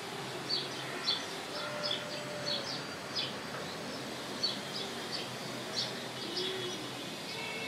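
Small birds chirping: short, high chirps repeating irregularly, several a second, over a steady outdoor background hiss.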